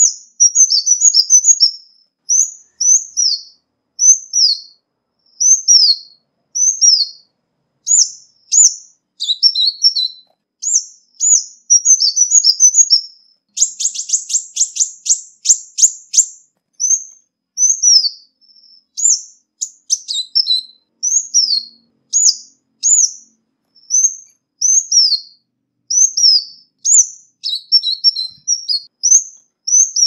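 Ruby-cheeked sunbird (Chalcoparia singalensis) calling: a steady string of short, high, falling notes about once a second, broken by a few quick twittering runs and, about halfway through, a rapid trill lasting two to three seconds.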